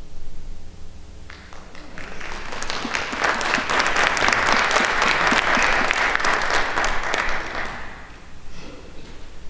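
Congregation applauding after a piano piece. The last piano notes are still fading as the clapping starts about a second in; it swells, then dies away near the end.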